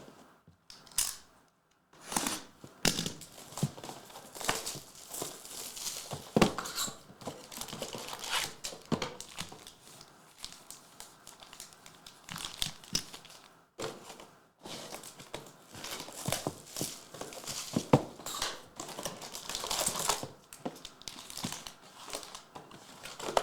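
Plastic trading-card packaging being torn open and crumpled by hand: repeated crinkling and tearing of wrappers on sealed Prizm basketball card boxes and packs, with a short pause about halfway through.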